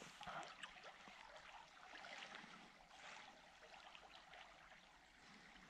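Near silence: the faint flow of a river, with a few soft scattered rustles and ticks.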